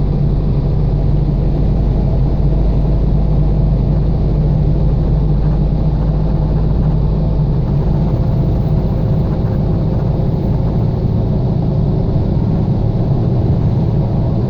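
Car driving: a steady low rumble of engine hum and road noise.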